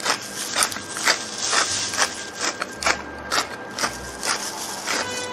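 Hands in a plastic bag rubbing salt and pepper into raw salmon fillets on a wooden cutting board: a steady run of rustling, scraping strokes, about two a second.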